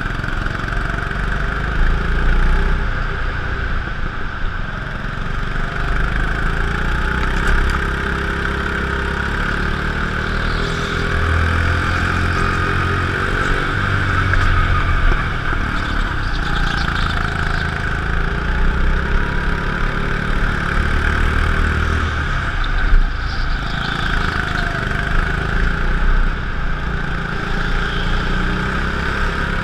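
A go-kart heard from a camera mounted on the kart while it laps: its engine running steadily, over a constant hiss.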